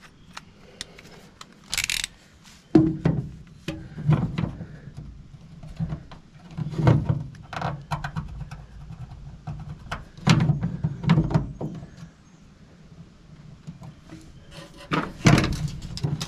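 Irregular knocks and clunks as a plastic 7-pin trailer plug is handled and pressed against the truck bed's sheet-metal wall, about eight of them with quiet gaps between.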